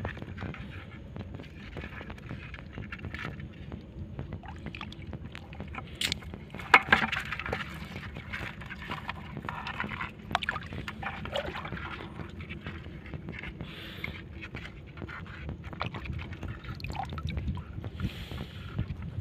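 Shallow sea water sloshing and splashing as a small hand net is dipped and scooped through it, over a steady low rumble. A sharp splash stands out about seven seconds in.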